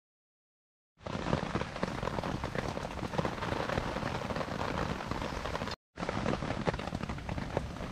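Rain falling on a tarp overhead: a dense, steady patter of many small drop taps. It starts about a second in and drops out for a moment about six seconds in.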